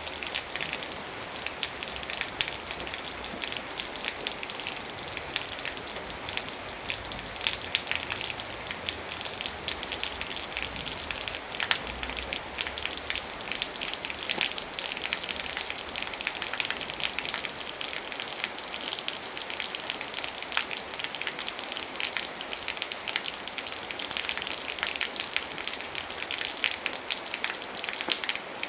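Steady rain falling, with a dense patter of individual drops striking a surface over an even hiss.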